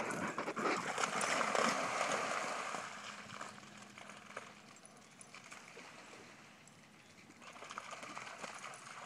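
Greyhounds' paws pounding and splashing through shallow rainwater puddles on wet grass as they sprint off, loudest in the first two or three seconds. A fainter splashing swells again near the end as a dog runs through the water farther off.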